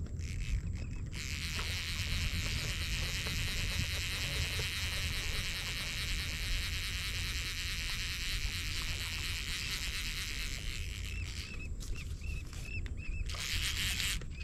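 Outdoor background on open water: a steady low rumble under a dense high hiss, with a few short bird-like chirps near the end and a brief rush of noise just before it ends.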